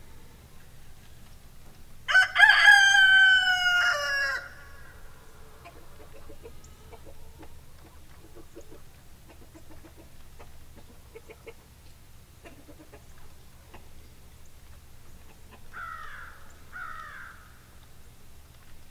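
A loud fowl call about two seconds in, lasting about two seconds and dropping in pitch at its end. Two short falling calls follow in quick succession near the end.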